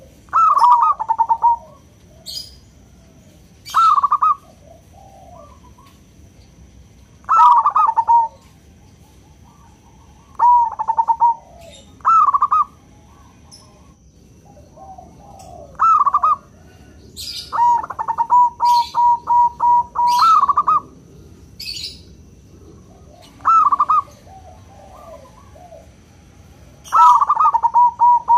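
Zebra dove (perkutut) cooing: short phrases of rapid staccato coos every few seconds, with one longer rolling run of quick repeated notes midway. Sharp high chirps come in between some phrases.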